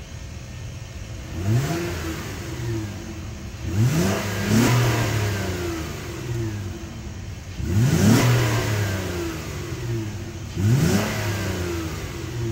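Honda Ridgeline's 3.5-litre direct-injected V6, heard at the tailpipe, idling and revved in about five quick blips that each rise in pitch and fall back to idle.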